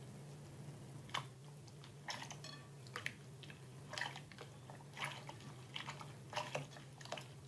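Slime being squeezed and poked by hand, making irregular wet clicks and squelches, over a steady low hum.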